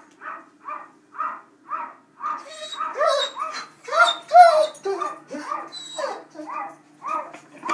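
Dog whimpering and yipping in a quick series of short cries, about three a second at first, then louder and more urgent after about two seconds, each cry rising and falling in pitch.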